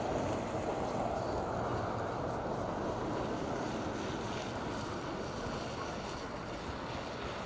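Steady wind noise on the microphone: an even, low rumbling hiss with no distinct events.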